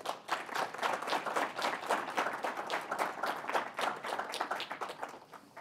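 Audience applauding: many people clapping, dying away near the end.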